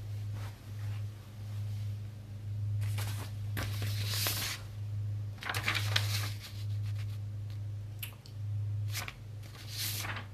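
Packaging being handled, crinkling and rustling in several short bursts, over a steady low hum.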